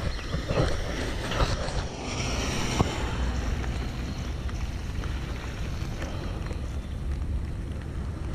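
Wind buffeting the microphone as a low rumble over a steady hiss of rain and wet pavement, while moving along a rain-soaked path. A brighter hiss of water comes in about two seconds in and lasts about a second.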